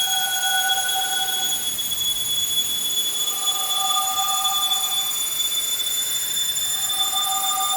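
Sci-fi spaceship engine sound effect: a steady high whine over a hissing hum. A lower two-tone drone pulses on for under two seconds about every three seconds, three times, like an alarm.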